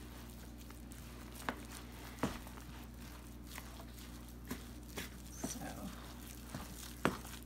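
Wooden spoon stirring a moist cornbread dressing mixture in a plastic bowl, with a few irregular sharp knocks of the spoon against the bowl.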